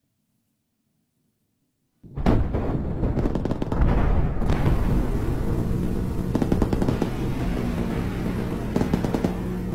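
A rapid-fire gun firing tracer rounds in one long unbroken burst, starting suddenly about two seconds in and running on as a dense, steady low hum with louder cracks here and there.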